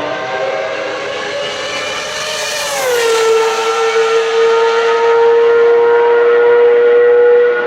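High-revving Ferrari racing car engine at speed, a high-pitched multi-harmonic note. The pitch drops about three seconds in, then holds steady and loud.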